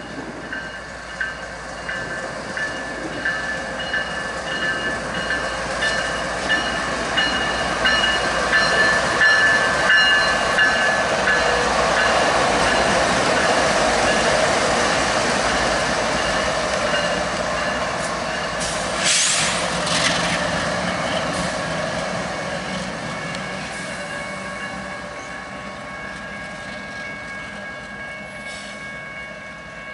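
Freight diesel locomotives passing close by, engines running and wheels rolling on the rail, growing louder to a peak midway and then fading away. Steady high-pitched tones ride over the rumble throughout.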